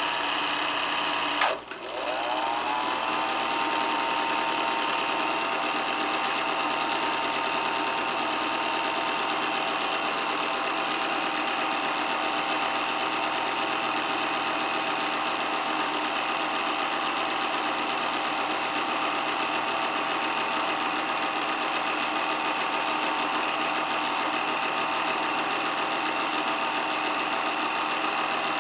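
8mm film projector running with a steady mechanical whir and clatter. About a second and a half in there is a click and a brief drop, after which the motor's whine rises and settles at a steady pitch.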